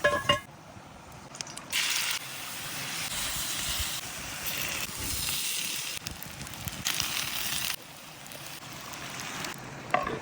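Food hissing and sizzling as it cooks, in several stretches that start and stop abruptly.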